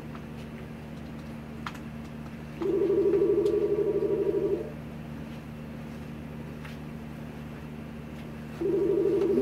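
Telephone ringback tone, the ringing a caller hears while a call goes through, coming over a phone's speaker. It is a steady two-tone ring with a fast warble, lasting about two seconds: one ring about two and a half seconds in, and the next starting near the end. A steady low hum runs underneath.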